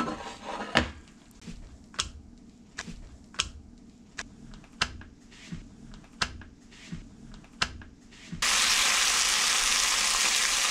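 Slices of ham frying in hot oil in a nonstick pan: scattered crackling pops at first, then about eight seconds in a loud, steady sizzle starts suddenly.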